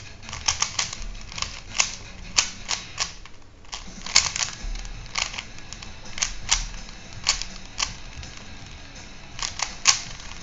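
MoYu AoLong speedcube being turned fast during a solve: quick, irregular plastic clicks and clacks of its layers snapping round, with a short pause about three and a half seconds in.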